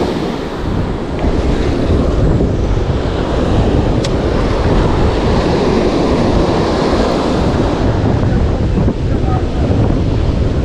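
Surf breaking and washing up a sand beach, with wind buffeting the microphone.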